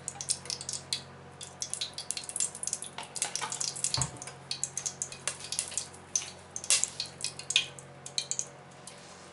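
Clarified butter and olive oil heating in a hot wok, crackling and spitting with many small irregular pops. A single dull knock sounds about four seconds in.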